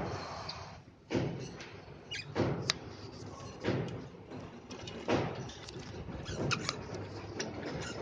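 Rustling swishes and a couple of sharp clicks about every second and a bit, from birds and their cage, with a few short high chirps from budgerigars.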